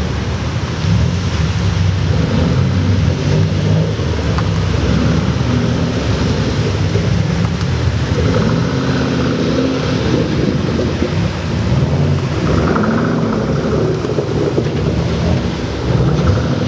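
Several Ford Mustangs driving past one after another, their engines and exhausts rumbling, with the engine note rising and falling as they accelerate away.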